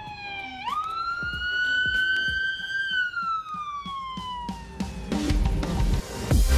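Police siren wailing: its pitch falls, jumps sharply upward about half a second in, climbs slowly, then sinks and fades away. Electronic music with a heavy bass comes in near the end.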